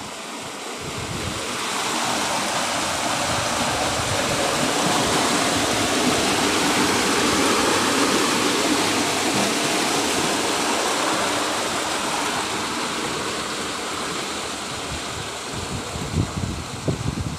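Fast canal water rushing through the gated outlet and brick culvert where a small canal leaves a big one: a steady rush that builds over the first couple of seconds and eases off near the end.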